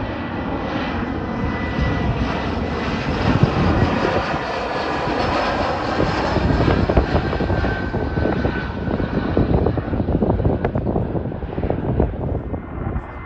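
Airliner engines passing nearby: a loud rushing roar with a thin steady whine that swells and then fades toward the end. Gusty wind buffets the microphone throughout.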